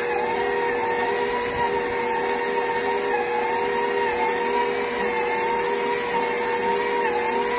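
KitchenAid stand mixer running steadily with its dough hook, kneading stiff pasta dough: a continuous motor hum whose pitch wavers slightly now and then.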